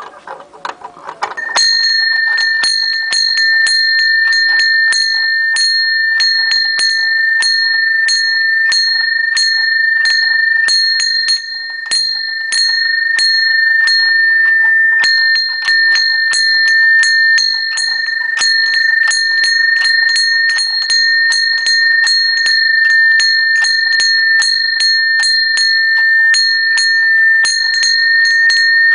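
Small rusty cast-iron wall bell rung by its pull rope, its clapper striking rapidly and repeatedly, a few times a second, so the high ring never dies away. The ringing starts about a second and a half in.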